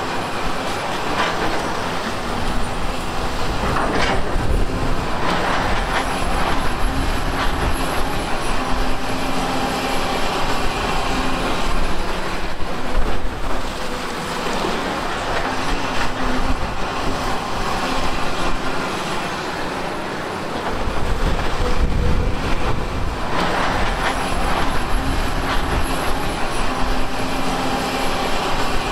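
LiuGong 942F hydraulic crawler excavator working: its diesel engine runs under load, rising and falling as the boom and bucket move, while the bucket scrapes and digs through broken rock, with occasional sharp knocks of rock.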